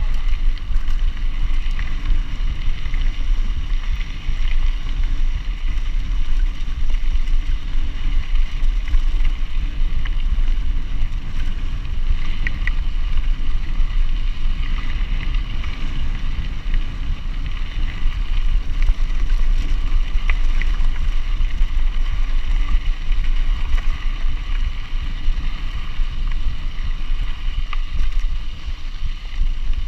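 Mountain bike riding fast on a gravel track, heard from a chest-mounted camera: wind rumbles on the microphone over a steady rolling noise from the tyres and bike, with a few brief clicks.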